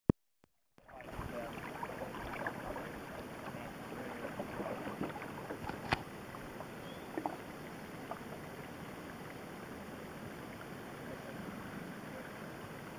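Lake water splashing and rushing along a plastic kayak's hull as it is towed at speed, a steady rushing noise full of small splashes that starts about a second in. A sharp tap sounds about six seconds in.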